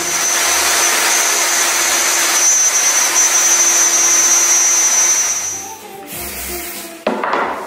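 Electric plunge router running and cutting wood: a steady high whine over a loud hiss that stops about six seconds in. Background music plays under it, and a short loud burst of noise comes near the end.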